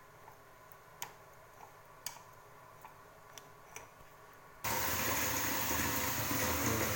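A few light clicks of a spoon against a metal strainer as the hot decoction is pressed through, then about two-thirds of the way in a loud, steady rushing noise starts abruptly and keeps going.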